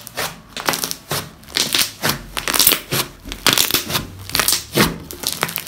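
Hands squeezing and pressing a large mass of thick slime, trapped air popping out in a quick, uneven run of small pops, about three a second: the slime's "bubble pop".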